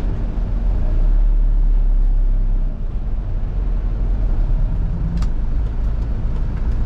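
Fuso Canter light truck's diesel engine and road noise heard inside the cab as a steady low rumble while the truck drives, with a single sharp click about five seconds in.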